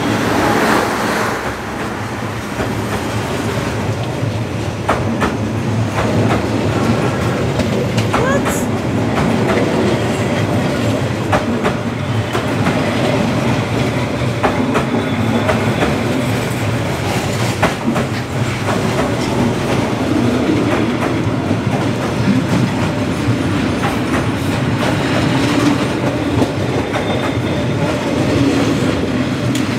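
Vietnam Railways passenger carriages rolling past at very close range: a steady rumble of steel wheels on rail, with scattered sharp clicks and clatter as the wheels cross the rail joints.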